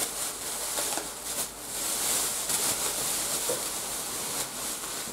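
Rustling and handling noise, an uneven hiss that swells and fades with a few faint clicks, as leftover air-drying modelling clay is wrapped up and closed away to keep it from drying out.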